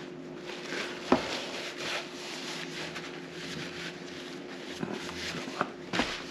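Quiet room with a steady low hum and faint rustling, broken by two short clicks, one about a second in and one near the end.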